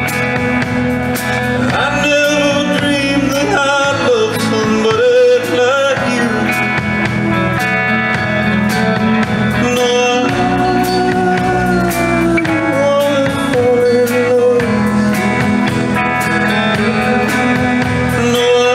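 Live rock-and-roll band music: electric guitar and a steady drum beat, with a man singing.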